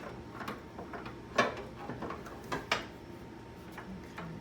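A few light clicks and knocks of metal and plastic parts being handled while a bracket is fitted in a car's engine bay, with two close together about two and a half seconds in.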